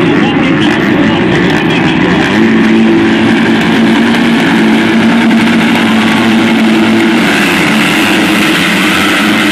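A pack of motocross bikes at the start gate with their engines held at high revs, a steady drone, then the pack launching together near the end.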